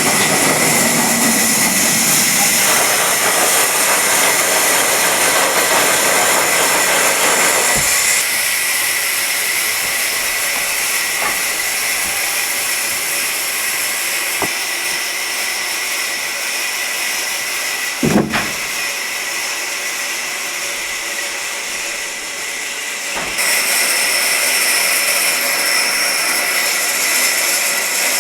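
Sawmill machinery running: a steady loud hiss with a constant high whine, shifting slightly in level twice, and a single knock about eighteen seconds in.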